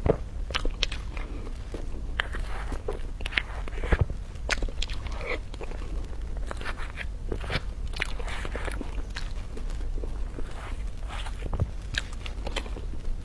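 Biting into and chewing crunchy food: an irregular run of crisp crunches and crackles.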